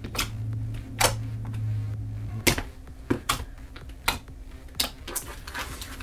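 Clear and white foamy slime squeezed and poked by hand, trapped air pockets popping with sharp clicks and snaps about every half second.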